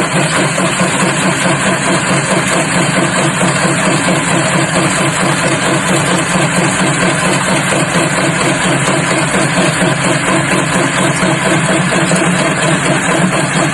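A loud, steady mechanical rumble that cuts in abruptly and runs on without a break.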